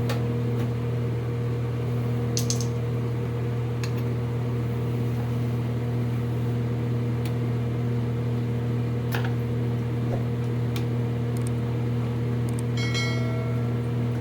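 Steady hum of a noisy fan, with a few light clicks and a short ringing clink near the end as the toilet's flush valve top and gasket are handled and seated.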